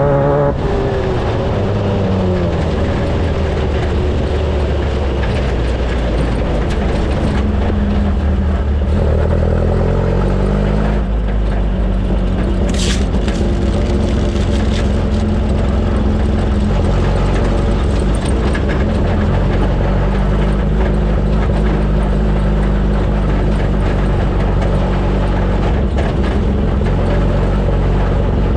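Off-road race vehicle engine running hard and steady, with the revs changing about a second in and again around ten seconds in. A single sharp tick sounds about thirteen seconds in.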